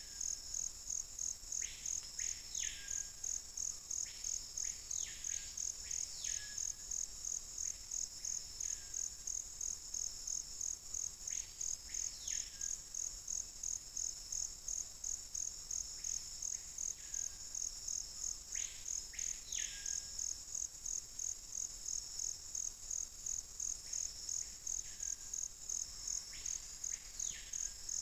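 A high, steady insect trill pulsing about three times a second, with a bird's short whistled notes repeated in groups of two or three every few seconds, each sweeping up and falling back.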